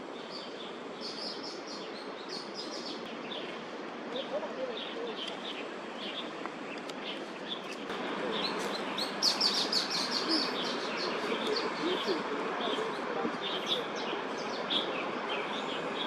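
Small songbirds chirping and calling over steady background noise, getting busier about halfway through with a quick run of high notes.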